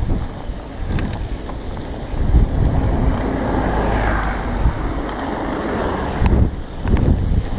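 Wind buffeting an action camera's microphone during a bike ride through snow: a loud, uneven low rumble that swells and eases.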